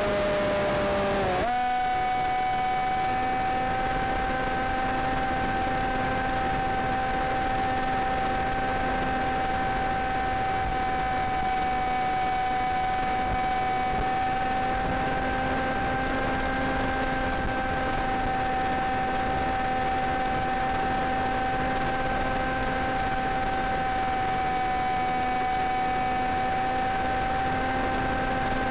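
Steady electric whine over hiss, heard through the plane's analog FPV video link: most likely the Blade Theory W's electric motor and propeller at part throttle. The tone dips and breaks off about a second and a half in, then holds one pitch.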